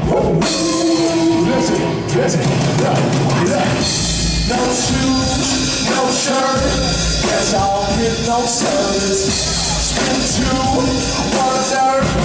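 Loud live concert music with drums and singing.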